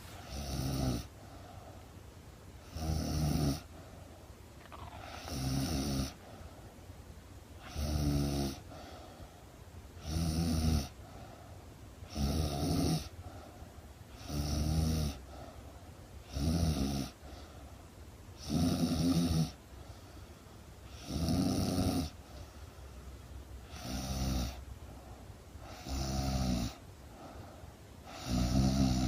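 A woman snoring in her sleep: a steady series of low, buzzing snores, one every two to two and a half seconds.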